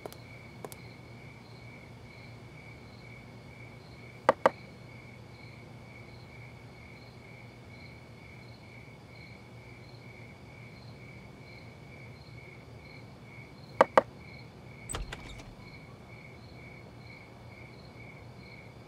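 Two double knocks on a wooden door, about nine seconds apart, with a dull thud about a second after the second pair. Crickets chirp steadily throughout.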